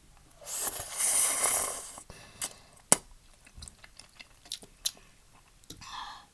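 A loud slurp of udon noodles lasting about a second and a half, followed by chewing with a few sharp clicks.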